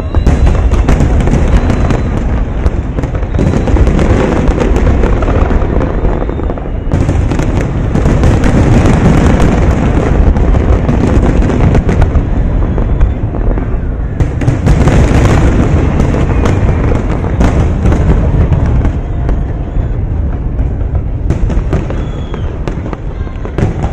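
Dense fireworks barrage: aerial shells bursting in rapid, overlapping succession, a continuous rumble of booms with sharp cracks, easing slightly near the end.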